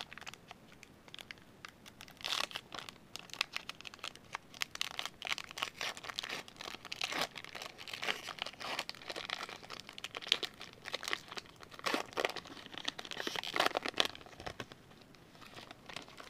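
Foil wrapper of a Metal Universe hockey card pack crinkling and tearing as it is pulled open by hand: a dense run of crackles that starts about two seconds in and dies away near the end.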